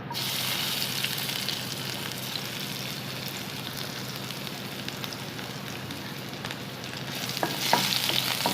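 Crushed garlic sizzling in hot mustard oil in a kadhai. The hiss starts suddenly as the garlic goes in, and a spoon clicks and scrapes against the pan near the end as it is stirred.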